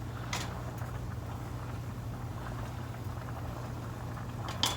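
Pot of water and broccoli cuts heating on a stovetop burner: a steady low hum with a faint even hiss, and a light knock about a third of a second in and again near the end.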